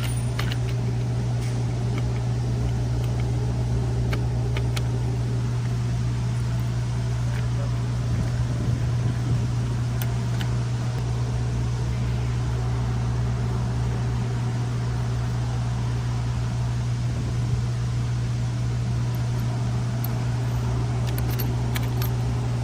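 A steady, unchanging low mechanical hum, like a running fan or motor, with a few faint clicks scattered through it.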